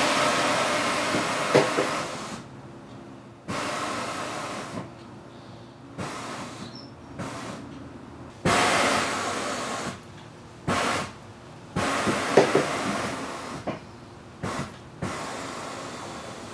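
Air Lift air suspension dumping air from its bags as the car is lowered to the ground: a series of about eight sudden hisses of escaping air, each starting abruptly and tapering off, some short and some a couple of seconds long, with a few sharp clicks among them.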